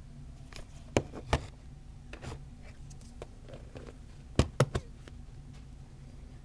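Handling noise as the camera is moved and set down: sharp clicks and knocks, two about a second in and three in quick succession a little past the middle, over a steady low hum.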